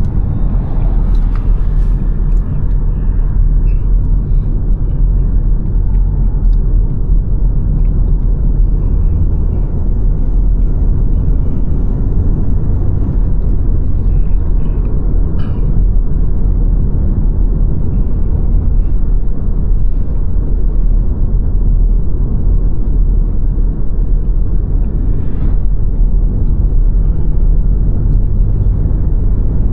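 Steady low road rumble of a car driving, its tyre and engine noise even throughout, with a few faint clicks.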